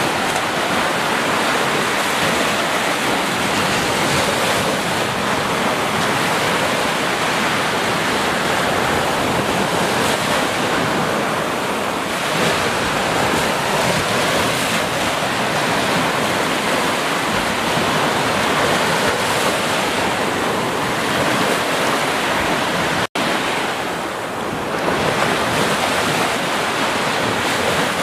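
Small ocean waves breaking and washing up a sandy beach in a steady rush of surf. There is a split-second dropout in the sound about 23 seconds in.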